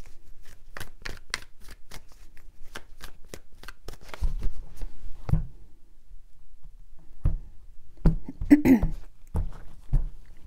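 A tarot deck shuffled by hand, a quick run of card clicks for about four seconds, then the deck set down and tapped on the table in a few soft knocks.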